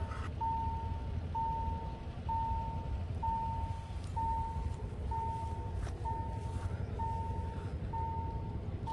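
Railway level-crossing warning alarm sounding as a train approaches: one steady electronic beep at a single pitch, repeating about once a second, over a low steady rumble.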